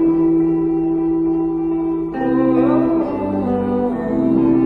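Background music: held chords with a singing voice that comes in about two seconds in.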